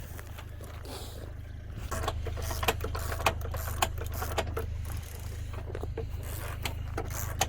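DeWalt 54 V cordless drill running under load, louder from about two seconds in, with irregular sharp clicks and knocks as it struggles to turn the stiff mechanism.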